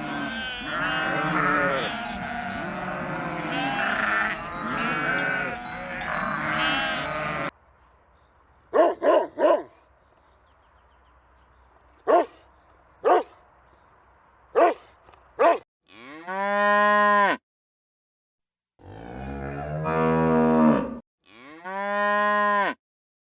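Cattle mooing: three long, drawn-out moos in the last third. Before them comes a stretch of many animals calling at once, then a few short, sharp calls.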